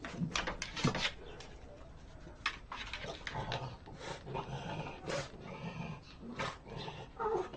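A dog vocalizing in low growl-like bursts, with scattered sharp clicks and knocks.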